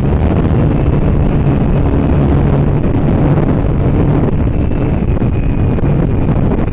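Wind rushing over the microphone of a small RC plane in flight, with the plane's motor and propeller droning steadily underneath.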